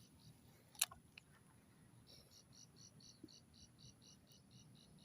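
Insect chirping in quick even pulses, about six a second, starting about two seconds in, over a faint steady high whine. A single sharp click comes just under a second in.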